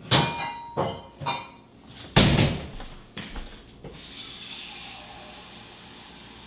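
Clattering and clinking of dishes being taken from a kitchen cupboard, a few knocks that ring briefly and a heavy knock about two seconds in, then a kitchen sink faucet running steadily from about four seconds in, filling a cup with water.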